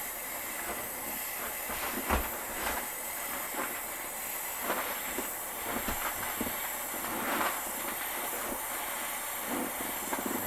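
Jeweller's soldering torch flame hissing steadily while heating a silver bezel cup until the solder flows, with a few light clicks and taps.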